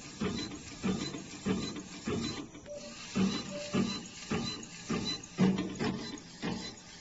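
Coffee printer's inkjet print head sweeping back and forth over the cup, a regular mechanical stepping and whirring pulse about twice a second.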